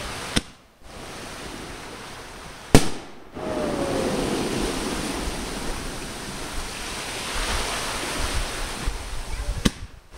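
Fireworks going off: three sharp bangs, about half a second in, near three seconds in (the loudest) and near the end, with a steady rushing hiss between them.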